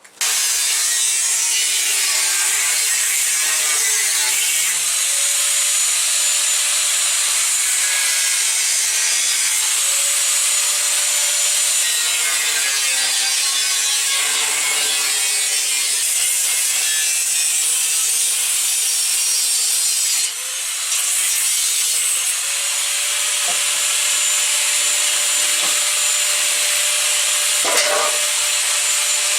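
Angle grinder running continuously against rusty sheet steel, grinding the rust off. Its motor whine sags and recovers as it is pressed into the metal. The noise eases briefly about two-thirds of the way through, then returns at full strength.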